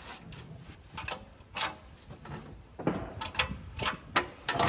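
Hydraulic transmission jack being pumped by hand, a series of irregular metallic clicks and knocks, more of them in the second half, as it lifts the transmission slightly to line up the crossmember bolts.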